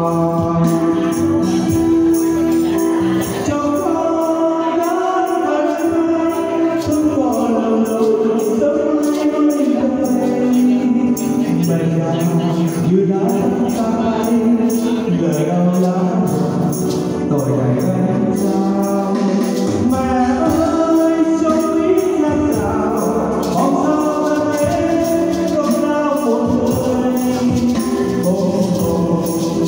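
A man and a woman singing into microphones over amplified music, with a hand tambourine shaken along in time.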